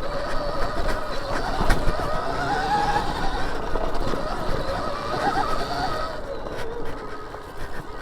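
Stark Varg electric dirt bike's motor whining, its pitch rising and falling with the throttle, with knocks from the wheels over rocky ground.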